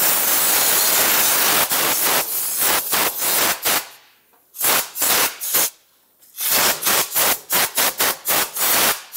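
Compressed-air blow gun blowing debris out from around the ignition coils on the engine: one long hiss of air for about two seconds, then many short quick blasts with a couple of brief pauses.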